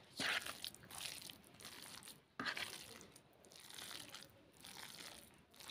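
Raw minced pork momo filling being mixed in a plastic basin: faint, irregular squishing and scraping strokes through the meat, with one sharper stroke about two and a half seconds in.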